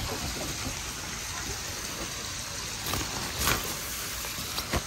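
Steady running and trickling water from a koi pond, with a couple of faint knocks in the second half.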